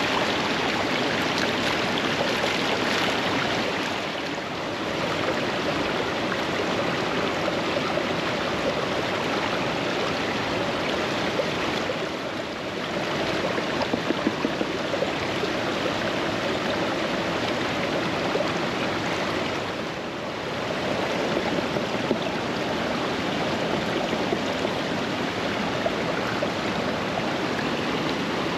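Fast-flowing creek water rushing steadily, with brief dips in level about every eight seconds and a few light clicks about halfway through.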